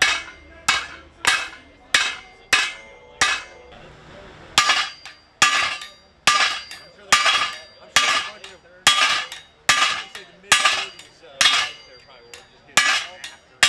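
Blacksmith's hand hammer striking a red-hot steel knife blade on an anvil in a steady rhythm of about one and a half blows a second, each blow ringing briefly. The blows stop for about a second some four seconds in, then resume.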